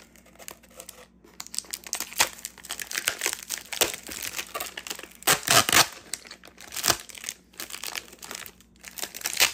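Toy booster packaging being torn open and crinkled by hand: an irregular run of crackling and tearing that starts about a second and a half in and is loudest around the middle.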